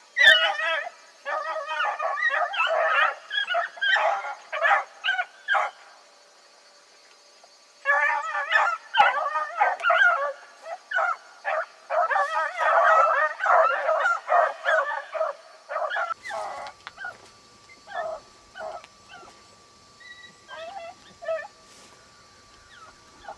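Beagle hounds baying on a rabbit's track, the calls overlapping in two long runs of near-continuous bawling. The cry then thins to scattered single calls over the last third.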